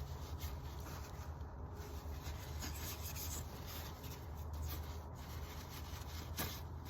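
Rubbing and handling noises from work on the oil filter housing cap and its rubber O-rings, over a steady low hum, with a sharp click near the end.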